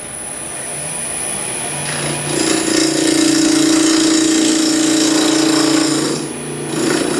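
Turning tool cutting into a fast-spinning African walnut blank on a wood lathe, rounding it off while the blank is still out of round. The cut builds about two seconds in, holds steady with a strong hum, and eases near the end.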